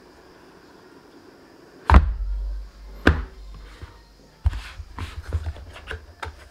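Cardboard smartphone retail box handled on a tabletop: a sharp thunk about two seconds in as the inner box is set down, a single click a second later, then a run of light taps and rustles as the lid is worked open.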